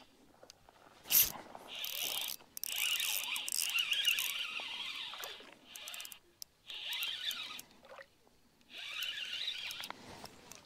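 Shimano Vanford spinning reel whirring in several bursts of a few seconds each as a hooked fish is worked in, with a sharp snap about a second in.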